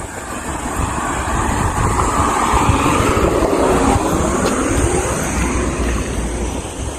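A road vehicle passing close by on the adjacent traffic lane. Its tyre and engine noise swells to a peak a few seconds in and then fades away, with wind rumbling on the microphone.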